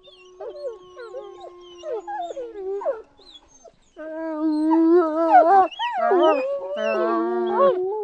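Dogs whining. For about three seconds a long steady tone runs with short, high sliding whines over it. After a brief pause, louder wavering whines follow, with two voices overlapping.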